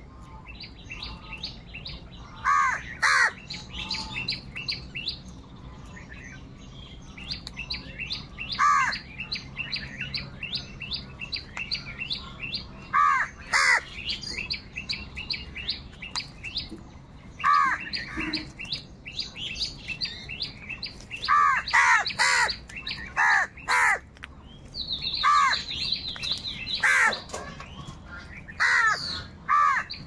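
House crows cawing at intervals, a dozen or so harsh caws, some single and some in quick pairs or runs, over a constant fast, high chirping of small birds.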